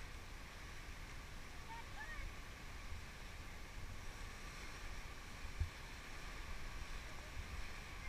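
Rushing whitewater of the Ganges rapids around an inflatable raft, with wind buffeting the action-camera microphone. A single dull thump about five and a half seconds in.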